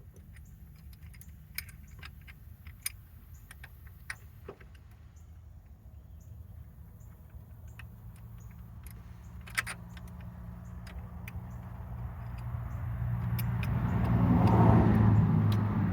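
Scattered small metallic clicks and clinks of hand tools and parts being handled. In the last few seconds a passing vehicle swells to the loudest sound, peaking just before the end.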